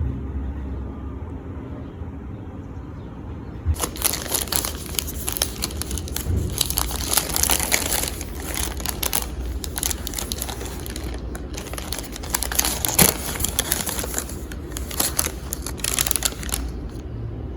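Dense, irregular crinkling and crumpling, like something being handled in the hands, starting about four seconds in over a low steady hum.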